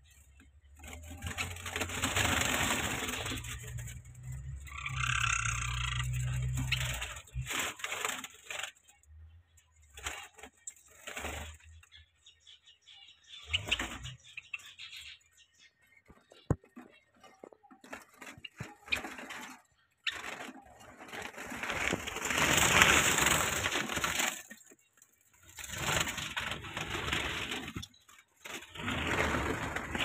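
Dry straw nest material rustling and crackling in irregular bursts, with a low rumble in the first few seconds and quiet gaps between the bursts.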